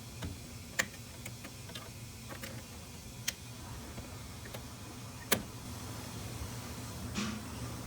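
Scattered sharp plastic clicks and light knocks as the back panel of a ZooMed front-opening enclosure is worked free of its clips. The loudest click comes about five seconds in and a brief scrape near the end, over a steady low hum.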